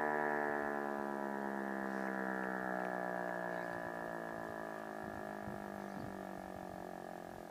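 Federal Signal Eclipse 9 outdoor warning siren winding down after its test sounding: a low tone with many overtones, sliding slowly lower in pitch as it fades.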